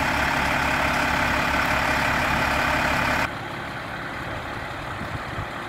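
Diesel engine of a parked fire engine idling, loud and steady. About three seconds in it cuts off abruptly, leaving a quieter low rumble.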